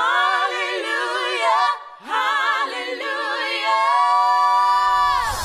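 Female voices singing a cappella with no instruments: two phrases with vibrato, broken by a short pause. The second ends on a long held note that falls away at the end.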